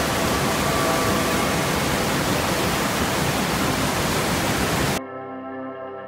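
Waterfall and rapids rushing in a steady, loud wash of water noise, with soft background music underneath. About five seconds in, the water sound cuts off abruptly, leaving the music alone.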